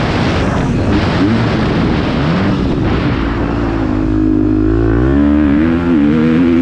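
Dirt bike engine revving up and down as it is ridden hard. The note drops as the rider eases off into a corner about four seconds in, then climbs again as he gets back on the throttle, with wind noise across the helmet camera's microphone.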